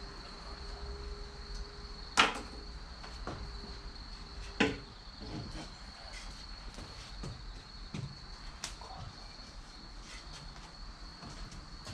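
Wood fire of chestnut and cherry logs crackling, with scattered small clicks and two loud sharp pops about two and four and a half seconds in. A steady high-pitched tone runs underneath.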